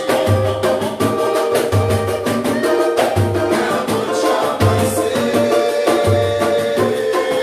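Samba group playing live: dense percussion over a deep beat that comes about every second and a half, with melody instruments on top.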